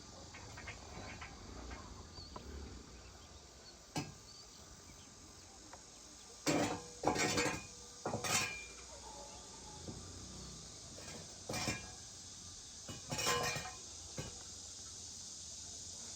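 A few short knocks and clinks over a faint steady hiss.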